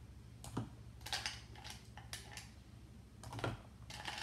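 Ice cubes being spooned out of a stainless steel cup and dropped into a plastic cup of milky drink. They make a string of separate, irregular clinks and clicks against the spoon and the cups.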